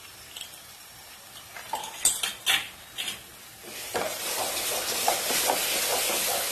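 Thick mango halwa sizzling in a nonstick pan, stirred and scraped with a wooden spatula from about four seconds in, with a steady hiss and small, uneven knocks. A few sharp clicks come shortly before the stirring starts.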